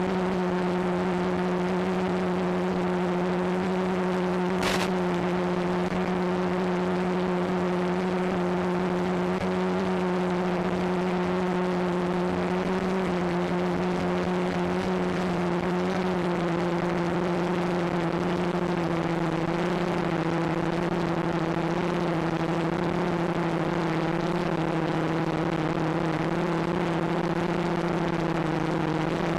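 Quadcopter's brushless motors and propellers running steadily in flight, heard from the camera on board: a constant hum whose pitch wavers slightly in the second half. A brief click about five seconds in.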